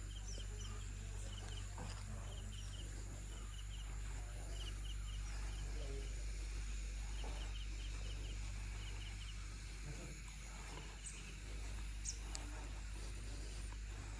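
Birds chirping in repeated quick runs of three or four short notes, a few seconds apart, with a couple of sharper high chirps near the end, over a steady low background hum.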